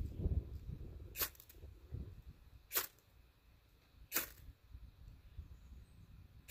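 Ferro rod scraped hard with a striker three times, about a second and a half apart, throwing sparks onto a pile of wood tinder. Low wind rumble on the microphone underneath.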